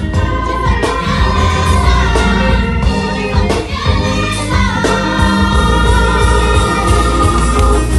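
Gospel choir singing with full voices over a loud, bass-heavy amplified accompaniment.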